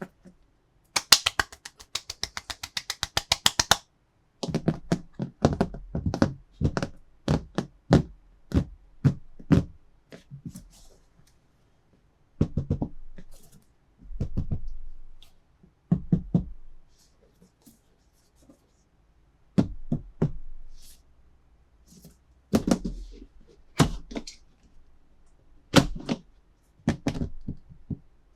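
Toys and their plastic packaging being handled: a fast run of clicks for about three seconds near the start, then a series of irregular knocks and thunks of small hard objects set down or tapped.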